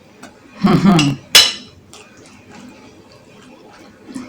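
Cutlery clinks sharply once against a dish about a second and a half in, followed by a few faint small clicks of eating.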